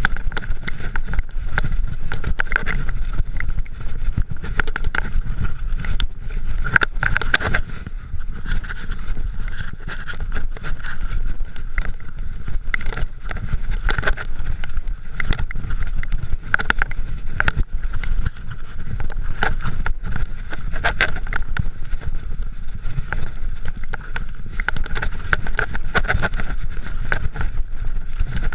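Mountain bike riding down rocky dirt singletrack, heard from a chest-mounted camera: a constant low rumble of wind on the microphone and tyres on dirt, with frequent sharp knocks and rattles as the bike hits rocks, over a steady high buzz.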